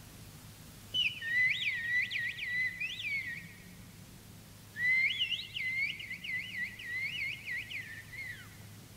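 A man whistling a coded signal of the old outlaws' whistle language: two phrases, each a held note broken by quick upward chirps. The second phrase is longer and ends with a falling glide.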